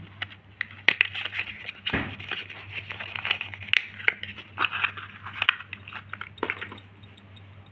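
Small cardboard cosmetics box being opened by hand and a plastic jar slid out of it: irregular crinkling, scraping and clicking of card and plastic, over a faint steady low hum.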